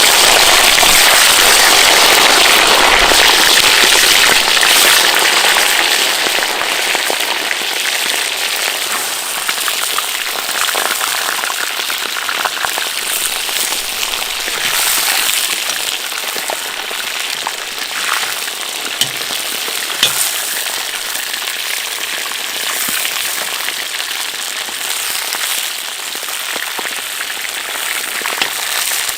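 Food hitting hot oil in a cooking pot over a campfire and frying: a sudden loud sizzle that eases after about five seconds into a steady sizzle with scattered crackling pops.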